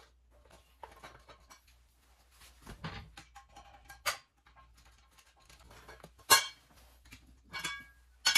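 Light metallic clicks and clinks of a screwdriver and screws working loose the steel cover plate of a Big Red floor jack, with sharper ringing clinks about six seconds in and again near the end.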